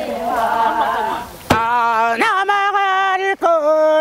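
Korean rice-paddy weeding work song (non-maeneun sori), sung in the folk style: several voices sing together, then about a second and a half in a single voice takes over, holding long notes that step up and down in pitch.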